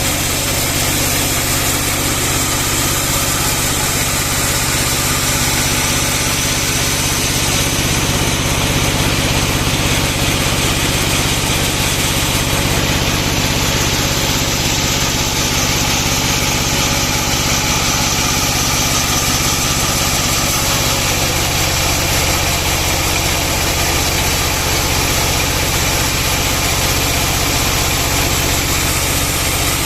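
Band sawmill running steadily: a constant engine drone with a low hum and an even hiss over it.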